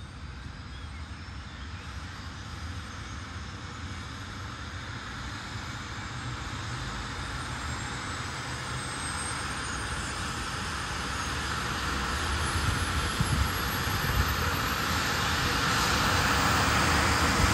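Airbus BK 117 twin-turbine helicopter starting up: a high turbine whine rises steadily in pitch over a low rotor beat, the whole sound growing steadily louder as the engines and main rotor spool up.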